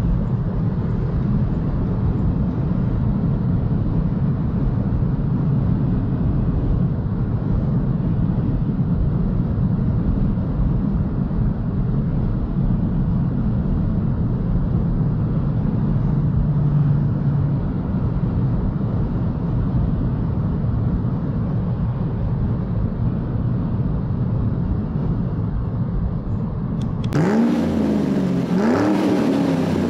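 Steady road and wind noise of a BMW i3 electric car driving at speed, with no engine note. About 27 seconds in, the sound cuts abruptly to a brighter one with repeated rising pitch sweeps, like a vehicle accelerating.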